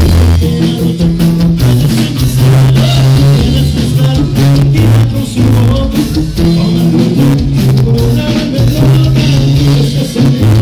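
Live ska-rock band playing loud: drum kit and guitar over a low bass line that steps from note to note.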